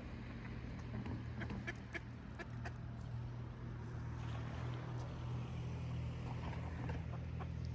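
Mallard ducks giving short, soft quacks at the water's edge, with a burst of wing-flapping and splashing in the shallows about halfway through. A steady low engine hum runs underneath.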